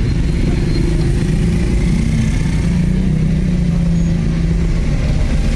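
Steady low engine rumble of heavy road traffic, heard from inside a car.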